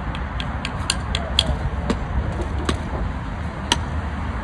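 Axe throwing at plywood targets: several short, sharp knocks of a thrown axe striking the board, over a steady low rumble.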